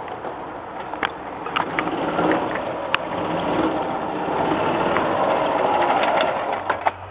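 Golf cart driving up and past close by, its motor running with rattles and clicks, getting louder as it comes near, then dropping away sharply near the end.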